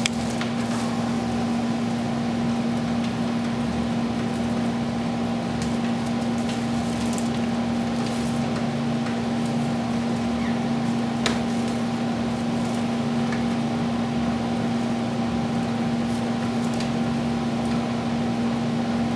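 Steady mechanical hum, like a fan or air-conditioning unit running, with a few faint clicks and rustles of broomcorn stalks being handled and tied.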